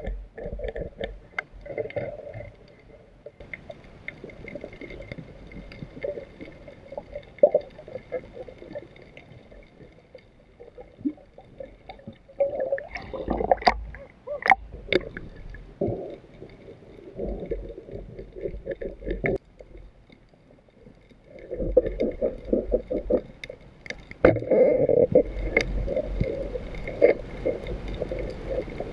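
Muffled water sloshing and gurgling with scattered sharp knocks, louder around the middle and again through the last third after a short lull.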